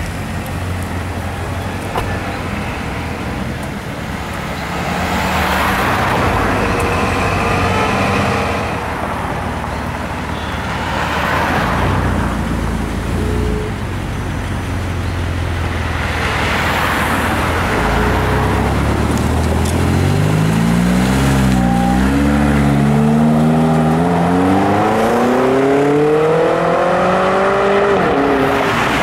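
BMW X5 M's twin-turbo V8 with a custom exhaust running at a low idle while the car manoeuvres. It then pulls away, the engine note climbing under acceleration and dipping briefly between rises in the last several seconds.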